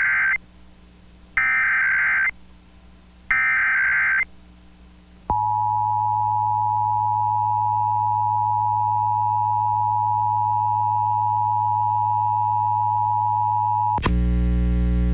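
Emergency Alert System test: the tail of one burst of the SAME digital header, then two more bursts of warbling data tones about a second each, with short gaps between them. About five seconds in, the two-tone attention signal (853 and 960 Hz together) starts and holds steady for nearly nine seconds. It cuts off near the end, and a loud buzzing hum starts in its place.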